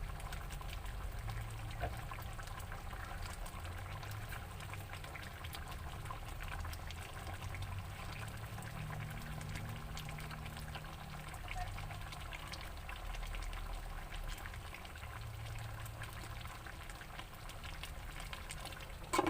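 Chicken asado simmering in a tomato-and-soy sauce in a pot, bubbling steadily over a low rumble, with a short knock at the very end.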